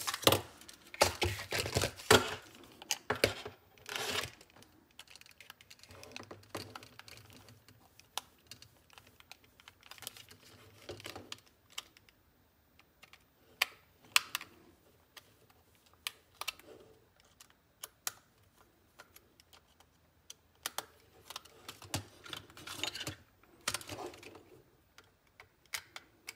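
Irregular small clicks and taps of a plastic headphone ear cup being handled and a precision screwdriver working its tiny screws, in scattered clusters with quiet gaps between.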